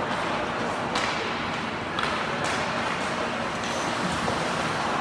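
Ice hockey rink sound: a steady wash of arena noise broken by several sharp clacks and scrapes from sticks, puck and skates on the ice, under a faint low hum.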